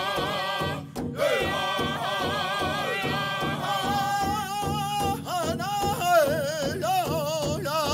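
Music: a steady beat with a melody of long, wavering held notes, with a short drop-out about a second in.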